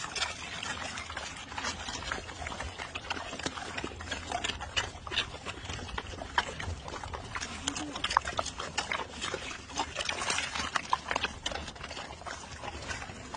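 Several pigs crunching and chewing quail eggs, the shells cracking in quick, irregular clicks.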